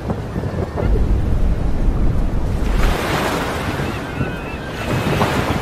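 Sea water sloshing and splashing against a boat, with wind rumbling on the microphone, loudest from about one to three seconds in. A few faint seagull calls come through about four seconds in.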